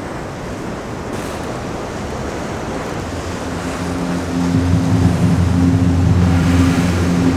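Surf washing and breaking over rocks, a steady rushing wash. About halfway through, a low steady droning hum comes in and grows louder, several low tones held together.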